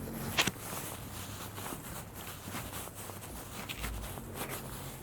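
Footsteps of a person walking, irregular steps over a low background hiss, with one sharper knock about half a second in.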